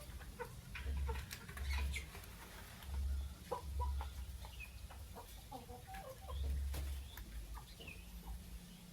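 Lovebirds making short, scattered chirps, squeaks and clicks. Several dull low thumps come and go among them.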